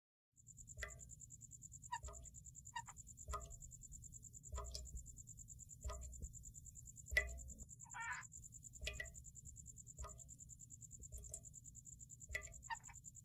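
Faint animal night chorus: a steady high-pitched pulsing trill, with short calls repeating about once a second over a low rumble.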